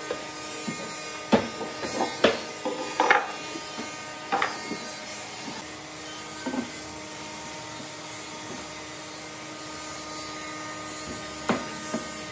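A small electric motor humming steadily in a workshop, with sharp knocks and clacks of wood and tools being handled, several in the first few seconds and two more near the end.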